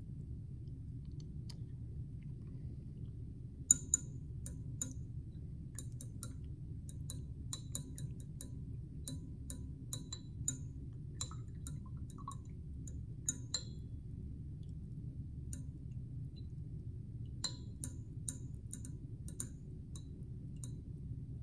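A metal temperature probe clinks and ticks against the inside of a glass beaker of water as the water is stirred. The clinks are light and scattered, in clusters, over a steady low hum.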